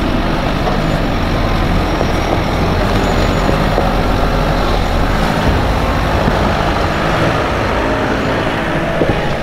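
Nissan Navara NP300 four-wheel-drive ute crawling past along a rutted dirt track, its engine running steadily. The deep low rumble eases about five seconds in as the vehicle comes alongside.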